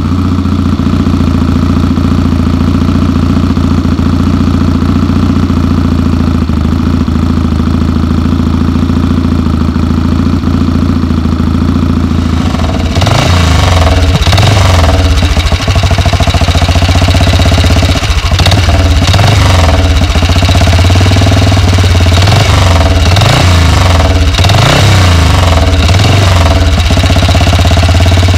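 A classic motorcycle engine idling steadily. About halfway through, a BSA single-cylinder four-stroke scrambler engine takes over, idling louder and revved up and back down in a series of short throttle blips.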